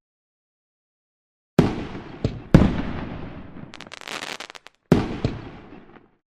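Fireworks going off: a sudden bang about a second and a half in, two more close together about a second later, a run of sharp crackles, and a last bang near the end. Each bang dies away slowly.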